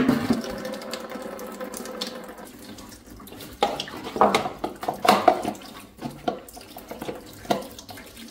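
Engine coolant pouring and splashing out of the open block drain-plug hole of a Ford 8N tractor. The stream runs steadily for the first couple of seconds. Knocks and clatters follow as a plastic funnel is held under the flow.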